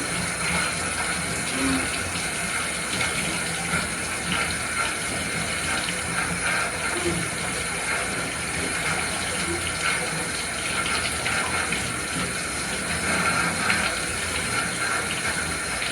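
Bath tap water running steadily into a tub as a dog is wetted down for a bath.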